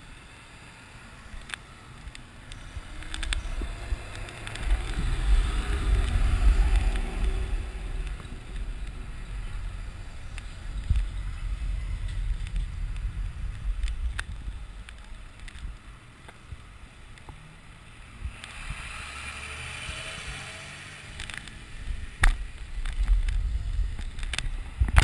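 Wind rumbling on a bicycle-mounted camera's microphone as the bike rides along a street, with car traffic passing close by and a few sharp knocks from the bike.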